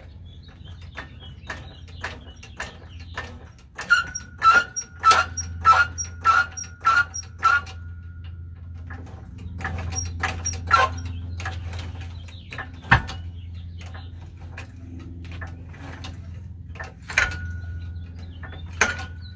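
Hydraulic floor jack pumped by its long handle, lifting the front of a car: a series of metallic clicks and clanks, with a quick run of about seven ringing clanks roughly two a second a few seconds in. Then come scattered clicks, one sharp knock and two more ringing clanks near the end, over a steady low hum.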